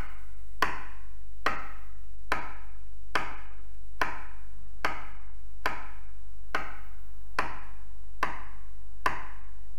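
A pen tapped against a hard surface in a steady beat, a little faster than once a second, each tap sharp with a short ringing tail. A steady low hum runs underneath.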